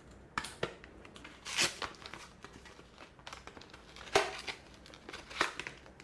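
Scissors cutting through a cardboard packaging sleeve and the clear plastic blister tray holding the RAM modules crinkling as it is pulled out: a scatter of small clicks and rustles, with louder crackles about one and a half, four and five and a half seconds in.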